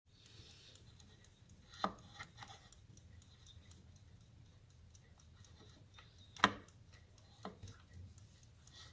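Antique copper carriage alarm clock ticking faintly and quickly. A few louder sharp knocks come over the ticking, the loudest about six and a half seconds in.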